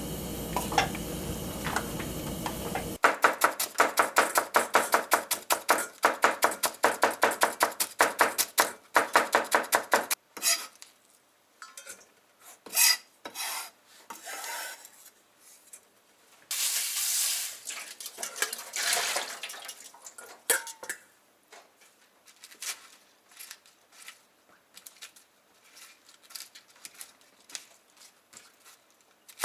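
Kitchen work sounds. A steady hiss for the first few seconds gives way to a utensil clinking fast and evenly against a bowl or pot, about five strikes a second for several seconds, as in stirring or mixing. Then come scattered clinks of dishes and two short scraping sounds.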